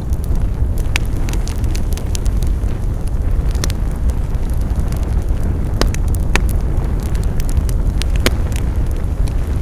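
Wood fire burning with a steady low rumble of flames and irregular sharp crackles and pops, a few louder snaps among them.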